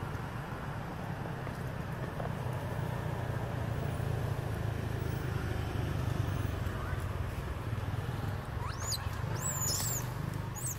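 A steady low rumble, like a running engine or distant traffic. Near the end come a few quick, high-pitched squeals that rise and fall, like a young monkey's.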